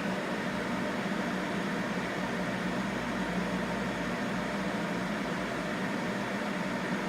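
Steady fan and motor hum from running electronic repair equipment, an even drone that does not change.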